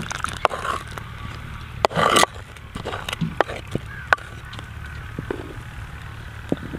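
Watery wheat slurry being poured from a bowl into a clay cooking pot of wheat porridge, with scattered clicks and knocks of the bowl against the pot's rim and a brief loud burst of noise about two seconds in. A wooden spoon starts stirring the porridge near the end.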